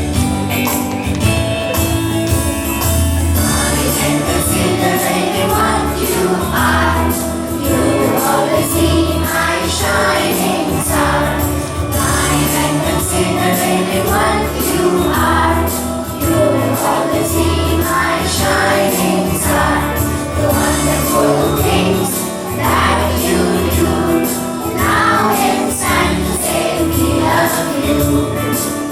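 A song sung by a group of voices over instrumental accompaniment with a steady bass beat.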